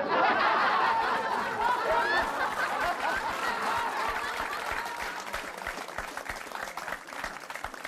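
Audience applause mixed with laughter, starting suddenly at full strength and slowly fading.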